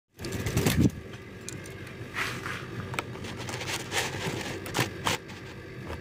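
A thump and rustle about half a second in, then scattered light clicks and scrapes; no bird call yet.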